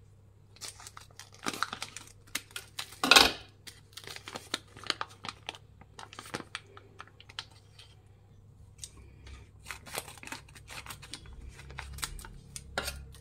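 Scissors snipping a jelly powder packet open while the packaging crinkles and rustles in the hands: a run of short clicks and crackles, loudest about three seconds in.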